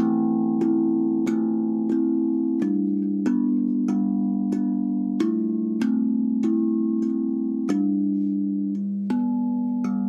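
A 15-note steel tongue drum (tank drum) played with the hands: single tongues struck one after another in a slow, even melody, about one and a half notes a second. Each note keeps ringing into the next, and there is one short pause a little before the end.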